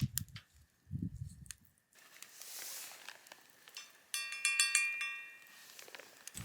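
A quick run of metallic clinks with a ringing tone about four seconds in, lasting about a second, from a metal utensil against metal cookware during camp cooking. A soft hiss comes shortly before it.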